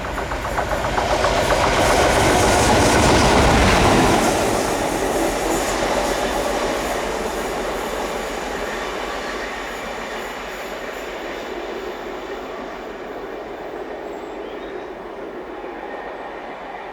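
Class 56 diesel locomotive 56078 running light engine past. Its Ruston-Paxman 16-cylinder diesel and the clicking of its wheels over the rail joints grow loudest about three seconds in, then fade as it moves away.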